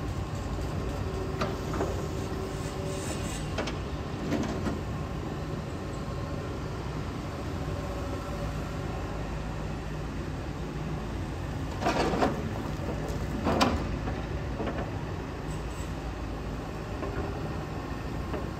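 Hitachi ZAXIS 210K hydraulic excavator's diesel engine running steadily, with two louder knocks about a second and a half apart, about two-thirds of the way through.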